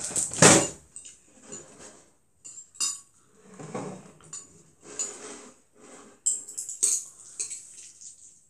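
Metal fork clinking and scraping against a ceramic bowl while noodles are stirred and picked up, in scattered taps and scrapes. There is a louder knock about half a second in and a quick run of clinks about six to seven seconds in.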